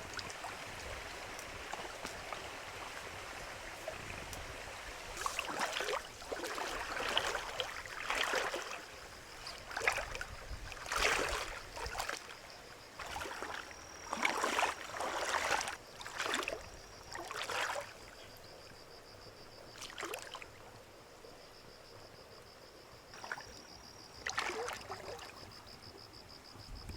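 Water sloshing and splashing in a string of irregular swishes. Over the second half a faint, steady, high-pitched tone runs behind them.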